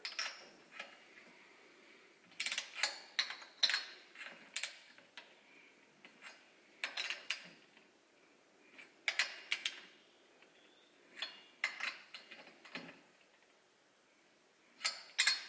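Torque wrench ratcheting on the cylinder head nuts of a Lambretta RT195 cylinder kit, in short spells of metallic clicks every second or two, as the nuts are tightened to 20 newton metres.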